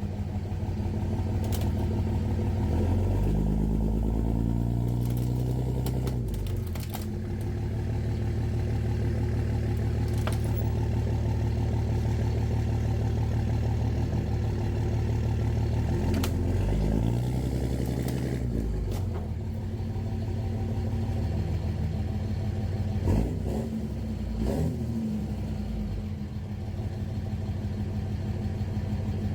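Diesel dually pickup truck engine running and revving up twice as the truck drives, with two sharp knocks a little over twenty seconds in.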